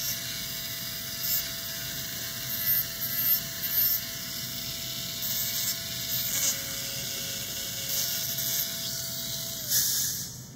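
Electric dental lab handpiece running with a grey abrasive point, trimming the nylon-type base of a TCS flexible partial denture, with a short gritty hiss each time the point is stroked across the base. The motor's steady whine winds down and stops near the end.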